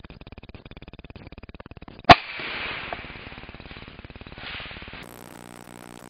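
A single rifle shot about two seconds in, fired at a barking deer (muntjac) through a night-vision scope, followed by a second or so of rustling in the undergrowth.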